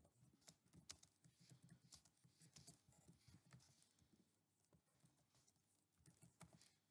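Faint typing on a computer keyboard: quick, irregular keystrokes that thin out about four seconds in.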